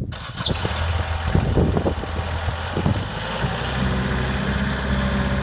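Toro Groundsmaster 3000-D riding mower's 36 hp diesel engine running. For the first three seconds a high squeal and some clattering knocks sound over it; after that the engine settles into a steady run.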